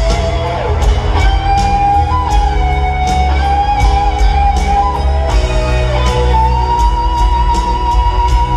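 Live rock band in an arena, led by an electric lead guitar playing a solo of long, held notes with bends and vibrato over drums and bass. The pitch steps up a little about two seconds in, and the guitar holds one high note through the last few seconds.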